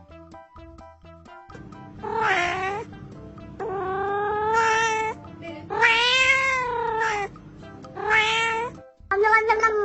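A cat meowing, a series of five long drawn-out meows, each rising and falling in pitch, over a low steady hum. Plucked background music plays for the first second and a half before the meows begin.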